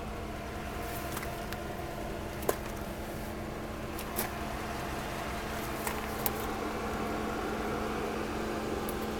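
Steady hum of a Dodge Ram's 5.7-liter Hemi V8 running at idle, heard from inside the cab, with a few light clicks and knocks. The sharpest knock comes about two and a half seconds in.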